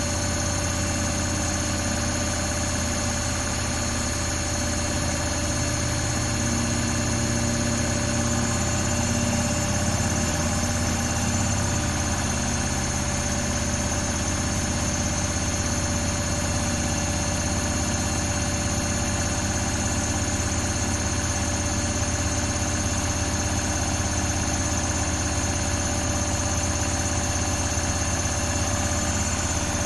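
Samsung WW80J5555FWEU washing machine running steadily on a 40°C daily wash: a continuous low hum with a steady high motor whine over it, without pauses.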